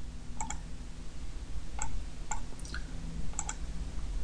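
Computer mouse buttons clicking: a series of short, sharp clicks, mostly in quick pairs, a few each second.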